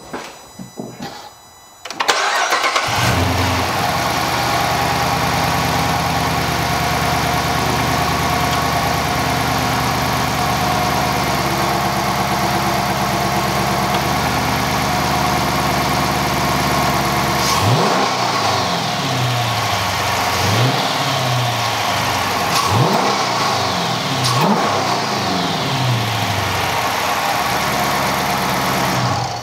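A 2014 Dodge Charger R/T's 5.7-litre Hemi V8 starts up about two seconds in and settles into a steady idle, on its first start with a newly fitted throttle body spacer. In the second half it is revved several times in short blips, the pitch rising and falling back to idle each time.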